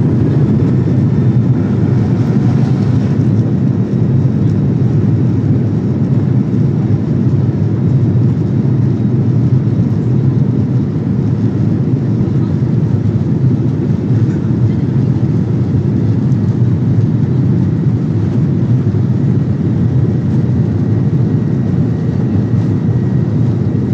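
Cabin noise inside a Boeing 737-800 rolling down the runway for takeoff: a loud, steady low roar from its CFM56-7B engines at takeoff power, with a few faint steady whining tones on top.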